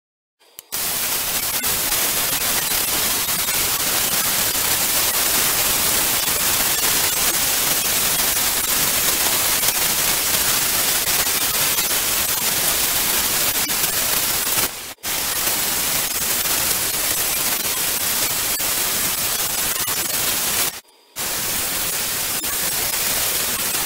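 Prime Weld Cut 50DP plasma cutter torch cutting 1/4-inch diamond plate at a 30 amp setting: a loud, steady hiss of arc and air that starts about half a second in and breaks off briefly twice.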